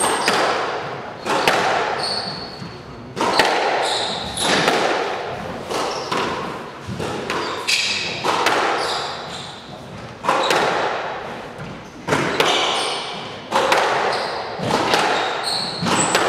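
Squash rally: the ball is struck by rackets and hits the court walls, sharp echoing cracks roughly once a second, with short high-pitched squeaks from the players' shoes on the court floor in between.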